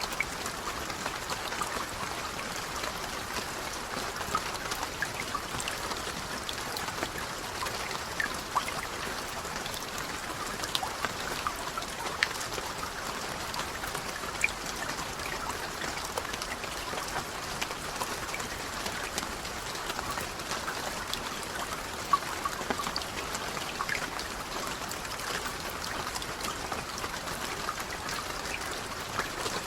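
Steady rain falling, with many individual drops ticking sharply over an even hiss.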